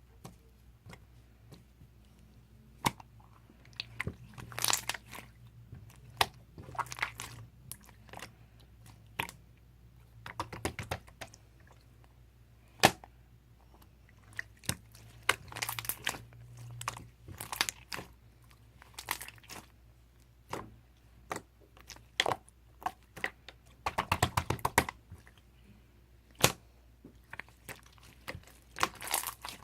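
Chewing and crunching close to the microphone, with irregular sharp clicks and short crunchy bursts.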